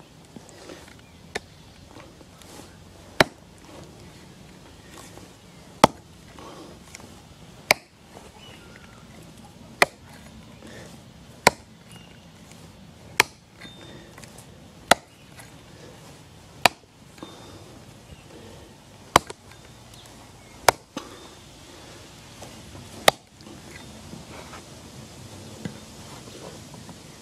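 Blunt axe chopping into a plum tree stump: about eleven sharp strikes, roughly one every two seconds, ending a few seconds before the close.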